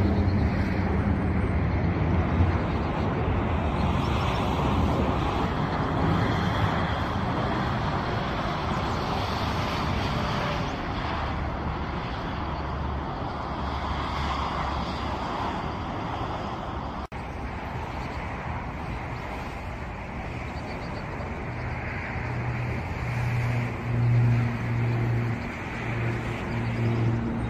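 Jet engines of a Boeing 737-800 on final approach, a steady broad rumble that breaks off suddenly partway through. Then the low, steady propeller drone of a Piper PA-31T Cheyenne II twin turboprop on approach, growing louder near the end.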